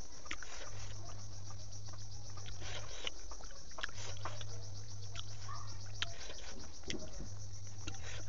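Fingers picking at and pulling apart sticky spiced pork intestine on a banana leaf, making scattered soft wet clicks. Behind them is a steady, rapid, high-pitched chirping pulse, and a low hum that cuts in for a couple of seconds and out for about one, several times over.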